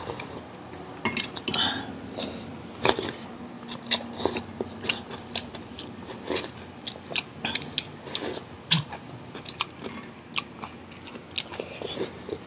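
A person biting and chewing food, with irregular sharp clicks and clinks of cutlery and dishes.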